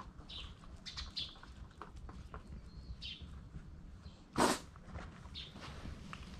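Small birds chirping now and then in short calls, over low rumble and light rubbing and clicking from hands working in a Shiba Inu's fur. A brief, loud burst of noise comes about four and a half seconds in.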